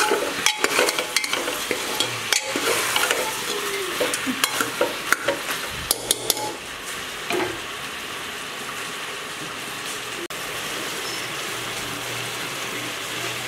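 Goat meat frying in oil in an open pressure cooker pot, sizzling while a metal spoon stirs it and scrapes and clinks against the pot's sides. The scraping stops a little past halfway, leaving a steady sizzle.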